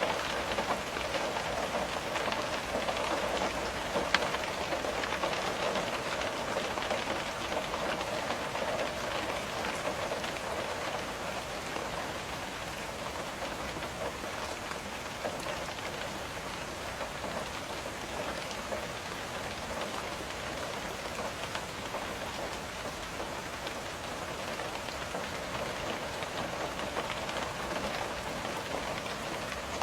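Steady rain on a window: a dense, even patter of drops, with one sharper tick about four seconds in.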